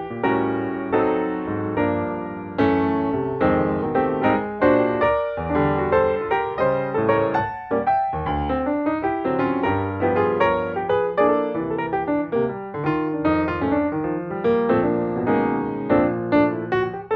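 Background piano music: a steady stream of struck notes and chords.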